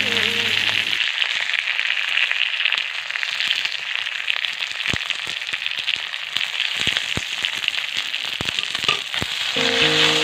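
Prawns and sliced tomato frying in hot oil in a kadai: a steady sizzle with crackling and a few sharp pops. Background music stops about a second in and comes back near the end.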